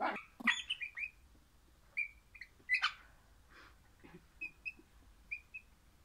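Crimson rosella giving short, high chirping calls in small clusters of two or three notes with pauses between, loudest near the start.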